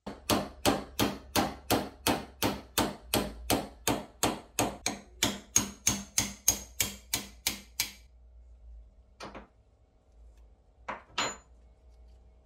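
Hammer blows, about two dozen at roughly three a second, stopping about eight seconds in; then a single knock, and two close together near the end.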